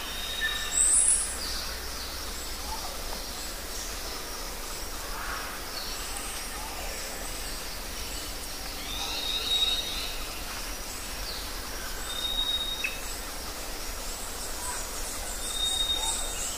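Cowbells on grazing cows clanking and ringing now and then, with one louder clank about a second in, over a steady outdoor hiss.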